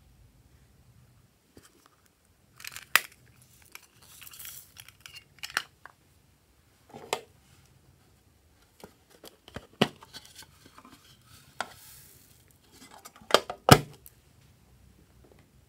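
Plastic containers clicking and knocking as they are opened and handled over a plastic bowl, with short rustles of small foam beads being poured out. Two sharp knocks close together near the end are the loudest.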